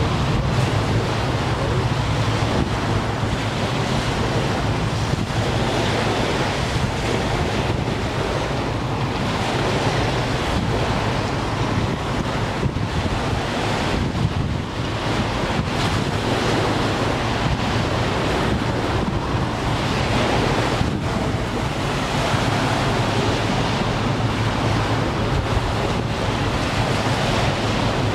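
Steady wind rushing over the microphone, mixed with waves washing on choppy water.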